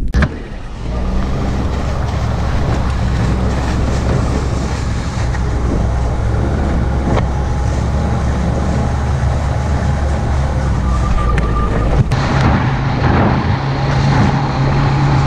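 Ski-Doo Skandic 900 ACE snowmobile engine running steadily while riding over snow, heard from on the sled. The engine note shifts higher about twelve seconds in.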